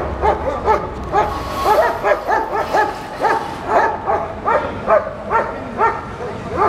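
A dog barking rapidly and insistently, about three short barks a second, with some barks overlapping.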